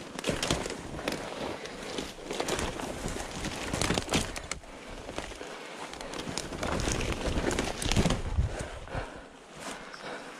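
Irregular crackling and rustling of dry branches and twigs underfoot, with scuffs and knocks; no engine running.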